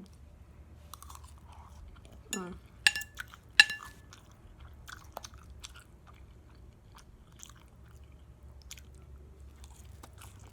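Tableware and a syrup bottle being handled over a plate of pancakes. About two seconds in comes a short falling squeak, then two sharp ringing clinks in quick succession, followed by scattered small clicks and taps.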